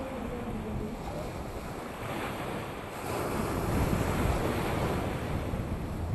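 Ocean surf washing against a boulder seawall, with a wave breaking and surging louder about three seconds in. Wind buffets the microphone.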